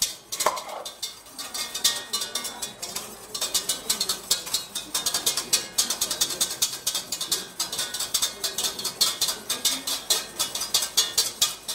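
Whisk beating a thickening emulsion sauce in a stainless steel saucepan, a quick, steady run of clinks and scrapes of metal on the pan.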